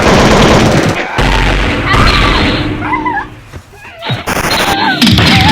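Loud booms and blasts like gunfire, mixed with wavering, wailing cries that rise and fall in pitch, over music.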